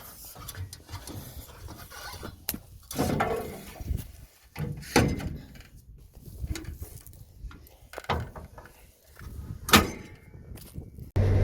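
Irregular clunks, clicks and thumps of someone handling the doors, latches and fittings of a combine harvester. Just before the end a loud, steady engine-like sound with a low hum cuts in abruptly.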